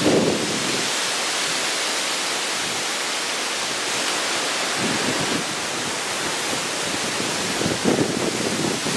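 Steady rushing hiss of hurricane wind and weather outdoors, with brief gusts buffeting the microphone about five seconds in and again near the end.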